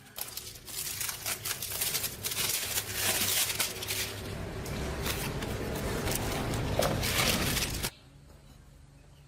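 Rough, continuous scraping or rasping, dense with rapid irregular scratches, that stops abruptly near the end.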